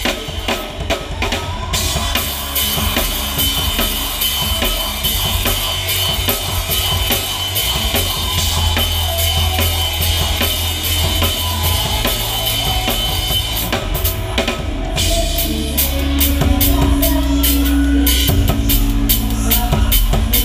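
A drum kit played with a band: bass drum, snare and cymbals over bass guitar. Cymbals ring continuously through the middle, with sharper separate hits near the end.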